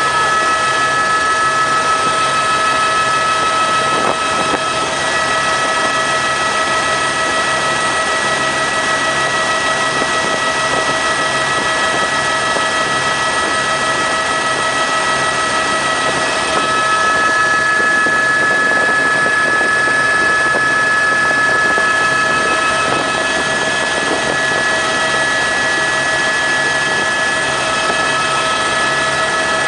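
Helicopter turbine engine and rotor running steadily, a loud rush of noise with a high, steady turbine whine that shifts slightly in pitch about sixteen seconds in.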